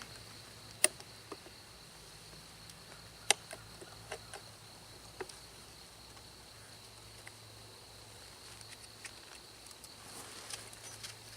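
Faint steady high-pitched insect chirring, with two sharp clicks about one and three seconds in and a few lighter ticks.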